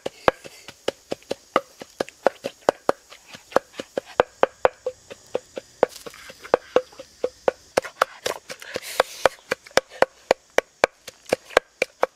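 A steady run of sharp wooden knocks, about three a second, each with the same hollow note: a knife chopping on a board or a pestle pounding in a wooden mortar.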